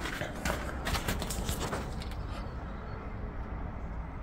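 Footsteps crunching over ash and rubble: a run of short, uneven crunches over the first two seconds, then quieter shuffling.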